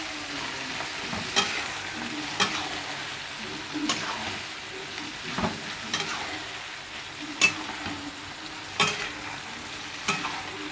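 Chopped onion, capsicum and tomato sizzling in hot oil in a kadai while being stir-fried with a metal spatula, which clinks and scrapes against the pan every second or two.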